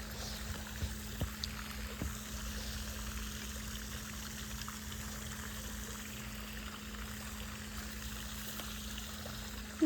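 Steady background noise: a constant low hum under an even hiss, with a few faint ticks in the first two seconds.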